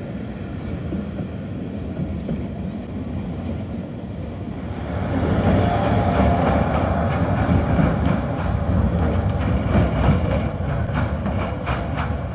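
NGTW6 'Leoliner' articulated trams running past on rails with a steady rumble. About 4.5 s in, a closer two-car train takes over, louder, with a few sharp clicks from the wheels near the end.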